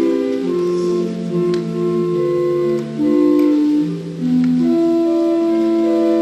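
Organ playing slow, sustained chords, several steady notes held together and changing every half second to a second.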